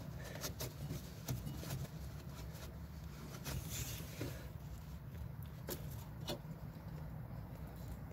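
Hand-handling noise at a vehicle's intake pipe: a rag being worked by hand and a scattering of light, sharp clicks and taps, over a steady low rumble.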